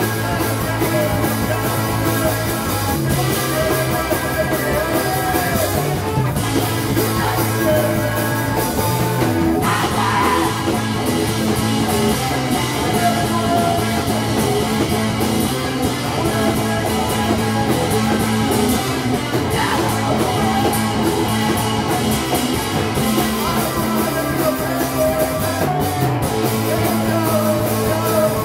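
Live rock band playing loud and dense: electric guitar, drum kit and keyboard, with a voice singing in long, gliding wails over them.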